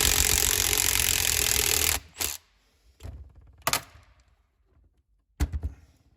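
A power tool runs hard for about two and a half seconds on a seized turbocharger housing bolt, then cuts off. A few short knocks and clicks of metal parts follow.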